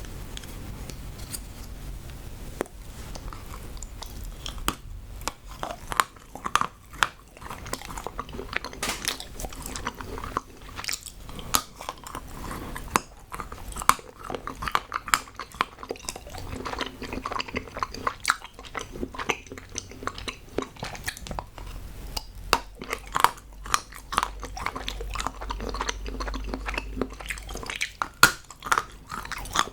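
Close-miked biting and chewing of hard moulded chocolate: many sharp snaps and crunches in quick succession.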